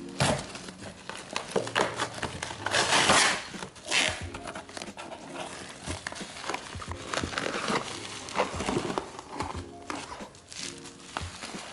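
Soft background music under the rustling, crinkling and clicking of packaging being handled during an unboxing, with a louder scraping rustle about three seconds in.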